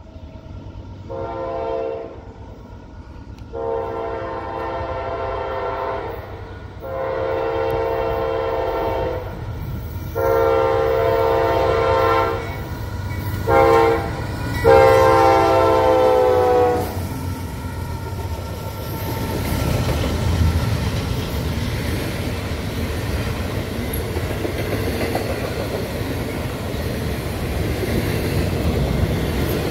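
Air horn of a Norfolk Southern GE AC44C6M diesel locomotive sounding six blasts, a short one and then long ones, ending in the long-long-short-long grade-crossing signal. After the horn stops, the locomotives and double-stack intermodal cars roll past with a steady, growing rumble of wheels on rail.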